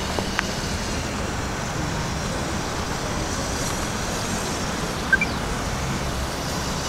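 Distant steam locomotive running slowly towards a station, a steady low rumble and hiss. Two short high chirps about five seconds in.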